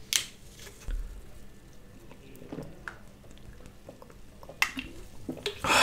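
A man drinking cola from a plastic bottle: soft gulping and swallowing with small clicks, then a louder rush of noise near the end.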